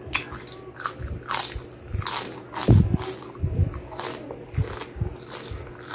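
Crispy deep-fried pork knuckle skin (crispy pata crackling) being bitten and chewed: irregular sharp crunches, the loudest about two and a half seconds in.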